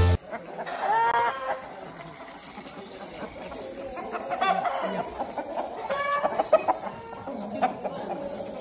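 Chickens calling: several separate short calls, about a second in, around four seconds and again around six seconds.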